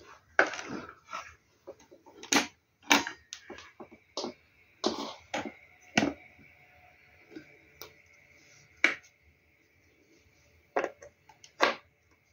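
Handling noise from a plastic-cased portable power unit being picked up, turned and handled with its cables: a string of irregular knocks and clicks. A faint steady high-pitched whine comes in about three seconds in and holds.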